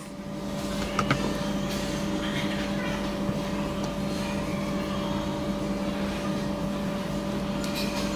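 Handheld electric rotary grinder running at a steady speed with a constant hum, trimming the uneven edges of an Apple Watch's cover glass; a few faint clicks about a second in.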